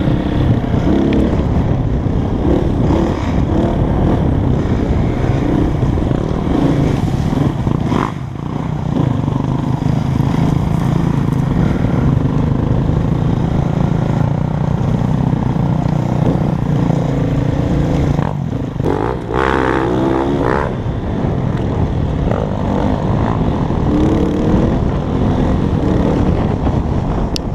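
Dirt bike engine running steadily during a trail ride, its sound dipping briefly about eight seconds in and again near twenty seconds.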